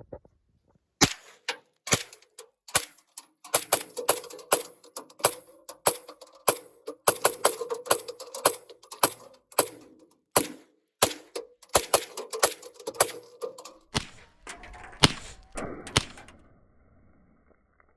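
Smith & Wesson Response 9mm carbine fired in a rapid magazine dump: a string of about three dozen shots, two to three a second, that stops about 16 seconds in.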